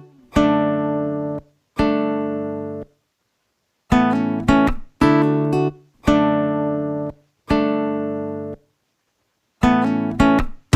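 Background music: acoustic guitar chords played one at a time, each ringing out for about a second before stopping short, with silent gaps between them.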